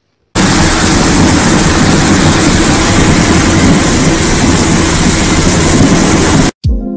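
Foundry noise: a loud, steady roar with no clear pitch around molten metal pouring from a spout. It starts abruptly just after the start and cuts off suddenly near the end.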